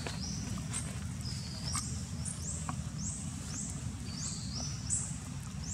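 Repeated high-pitched rising chirps, about two a second, from forest wildlife, over a steady low rumble, with a few faint clicks.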